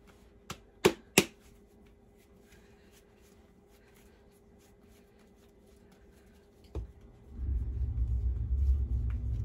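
Dough being slapped and patted by hand on a floured wooden board, a few sharp smacks in the first second or so, then soft kneading. About seven seconds in there is a thump, and a steady low rumble starts and carries on.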